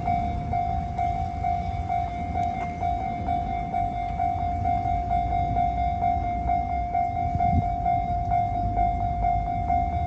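Japanese level-crossing warning bell ringing in an even, repeating rhythm, over the low rumble of a passing train.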